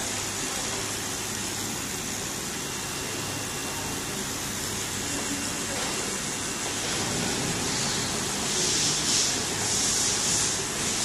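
Spool winder running, winding PET film strip onto a bobbin: a steady low machine hum under a constant high hiss, the hiss rising and falling over the last few seconds.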